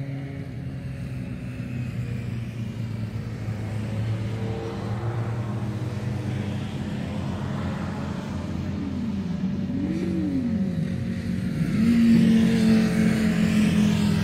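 Motorcycle engines running on the circuit, with revs rising and falling about nine to eleven seconds in and a louder, steady engine note from about twelve seconds on.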